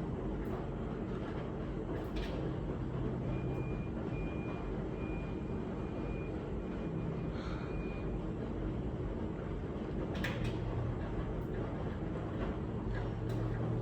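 Miele W1 Professional washing machine running, a steady machine hum with low motor tones throughout and a couple of brief clicks.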